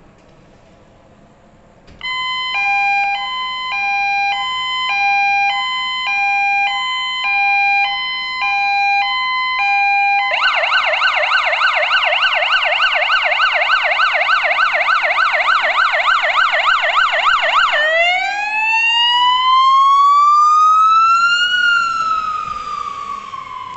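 Siren of a Mercedes Sprinter fire-rescue vehicle responding to an emergency call. It starts about two seconds in with a two-tone hi-lo call, switches to a fast yelp about ten seconds in, then to a slow wail that rises and falls. It fades near the end as the vehicle drives away.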